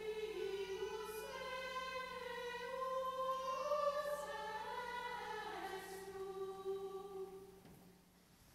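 A choir singing a slow melody in long held notes, fading away near the end.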